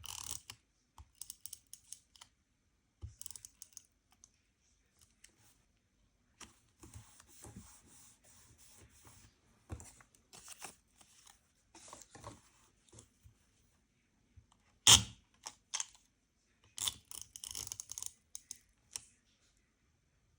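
Journaling stationery being handled on a desk: scattered small clicks and taps with short stretches of paper rustling, and one sharp, louder click about fifteen seconds in.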